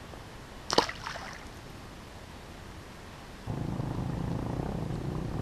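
A brief sharp sound about a second in, then from about three and a half seconds a fishing reel being cranked steadily, a low even whirring, as the topwater lure is retrieved.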